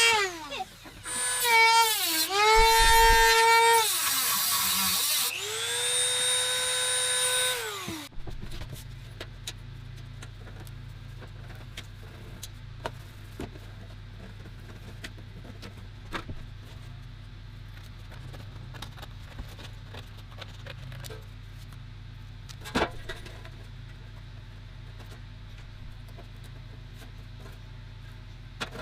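High-speed rotary tool running with a high-pitched whine, its pitch dipping and recovering a few times as it is pressed into work, then winding down and stopping about eight seconds in. After that only a faint steady low hum remains, with a few light ticks and knocks.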